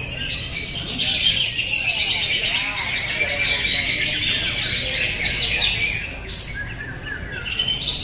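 Many caged cucak hijau (greater green leafbirds) singing at once, a dense, continuous chorus of overlapping chirps and whistles that thins a little about six seconds in.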